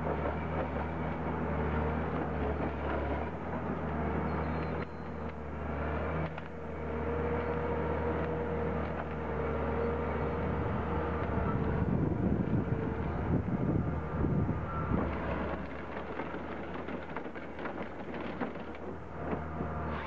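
A machine's engine running steadily, with a higher whine held through the middle and a louder, rougher stretch of noise about twelve seconds in.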